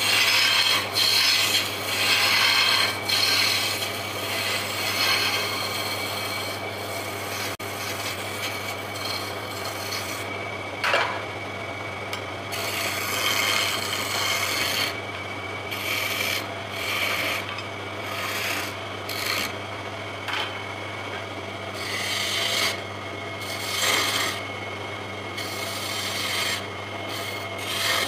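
Wood lathe turning a wooden spindle while a hand-held chisel cuts it, a rough rasping scrape of shavings coming off in repeated passes over the lathe motor's steady hum. The cutting is heaviest in the first few seconds and comes back in shorter bursts later.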